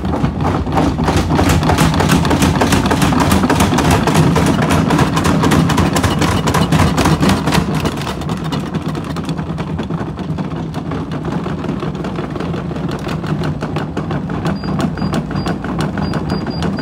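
Hotpoint WT960 washing machine on a high-speed spin: the drum and motor hum steadily under a fast, dense clatter of knocks as the machine jumps about on the floor. The knocking is heaviest for the first eight seconds or so, then thins out while the hum continues.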